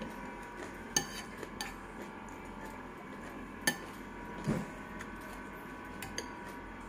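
Metal fork and spoon clinking against a bowl while mixing instant noodles: a few sharp separate clinks and a duller knock, over light scraping.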